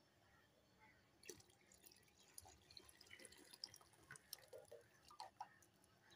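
Faint dripping and splashing of a thin stream of ground rice-and-milk mixture being poured into a metal pot of hot milk.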